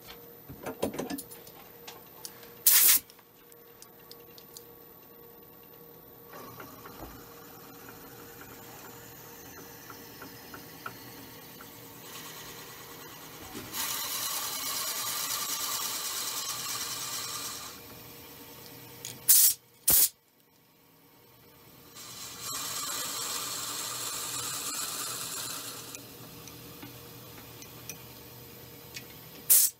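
Wood lathe running steadily while a 1/2-inch brad point bit in a tailstock Jacobs chuck bores into a spinning willow blank. There are two spells of louder hissing cutting noise, each a few seconds long, in the second half. A few short sharp clacks are the loudest sounds.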